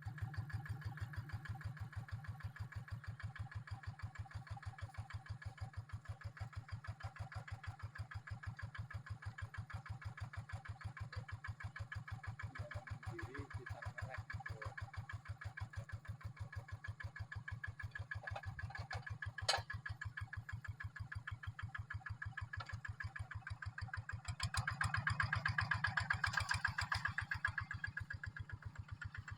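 Paddy-field tractor's D12s diesel engine running with a fast, even chug. It grows louder for a few seconds near the end, and there is one sharp click about two-thirds of the way in.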